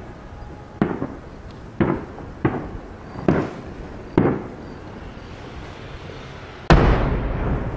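Aerial firework shells bursting: five sharp booms roughly a second apart, then the loudest boom near the end trailing into a long rolling rumble.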